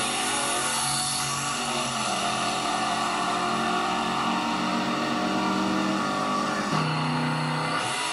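Supercharged drag car engine at full throttle, accelerating hard down the strip. Its pitch shifts in the first couple of seconds, then holds fairly steady. The sound changes abruptly near the end.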